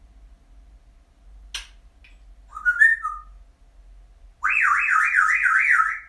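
African grey parrot whistling: a click, then a short whistle that rises and falls, and near the end a loud, fast warbling whistle about a second and a half long that sweeps quickly up and down.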